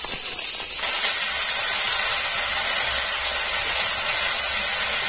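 Chopped green beans and carrots sizzling in hot oil in a steel karahi, just tipped in: a loud, steady hiss.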